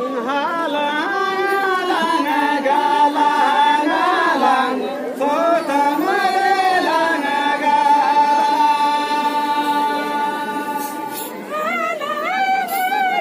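A group of women singing a Santali traditional song together, the tune bending between notes, with a long held note in the second half.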